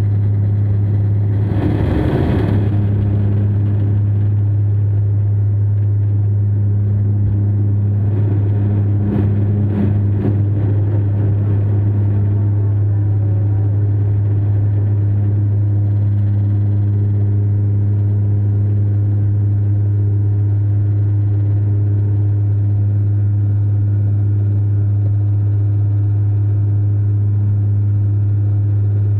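Airliner engines running at takeoff power, heard inside the cabin as a loud, steady, low drone. A brief burst of rushing noise comes about two seconds in.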